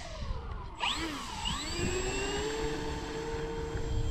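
Twin electric motors and propellers of an Avios King Twin RC plane on its takeoff roll: the whine dips, then rises and settles into a steady high-throttle pitch as the plane climbs away.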